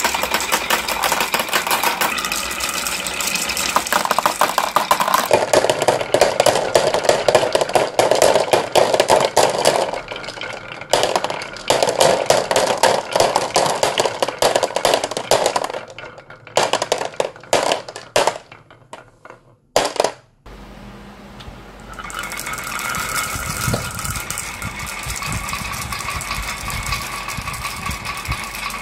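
Many glass marbles rolling down wooden wave-track slopes, clicking against the wood and each other, and dropping into a plastic toy dump truck's bed. A dense clatter that thins to scattered clicks past the middle, a short lull, then a steadier rolling rumble in the last third.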